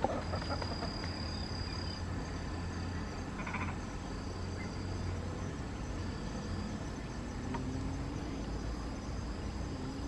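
Faint outdoor ambience by the water: a steady low rumble and a thin, constant high tone, with a few short, faint animal calls, one cluster about three and a half seconds in.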